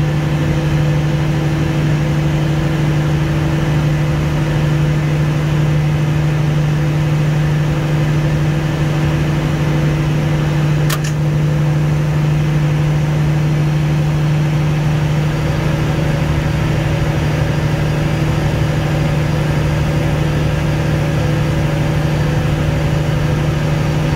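Generator set engines running with a loud, steady hum. A single sharp click about eleven seconds in is the generator circuit breaker closing as G507 reaches the synchronous point.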